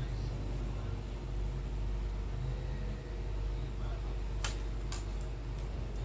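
Steady low background hum, with three or four sharp clicks between about four and a half and five and a half seconds in, from a cockatiel's claws on the keys of a laptop keyboard.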